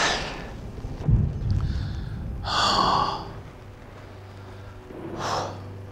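A person's breathy gasps and exhalations, three of them, the middle one longest and loudest, with a short low thump about a second in.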